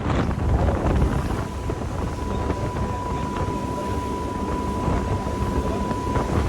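Wind buffeting the microphone on a moving cruise boat, over a dense rumble from the boat. A steady high tone comes in about two seconds in and stops shortly before the end.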